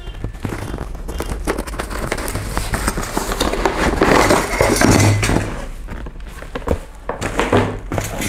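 Unpacking a heat gun from its cardboard box by hand: cardboard scraping and rustling, a plastic bag of metal nozzles crinkling, and irregular handling knocks and clicks.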